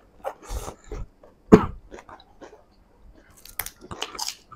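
Close-up eating sounds, chewing and biting through mouthfuls of food, broken by one loud cough about a second and a half in.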